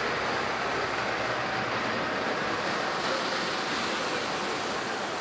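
Farm tractor driving past close while towing a track harrow over the sand surface of a trotting track: a steady noise of engine and harrow dragging through the sand.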